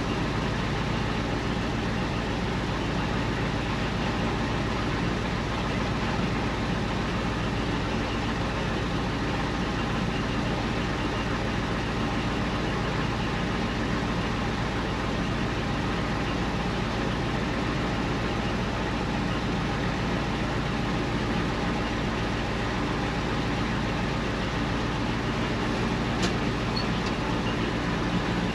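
International 4600 dump truck's naturally aspirated 7.3 IDI V8 diesel running steadily, a constant engine drone with no change in speed.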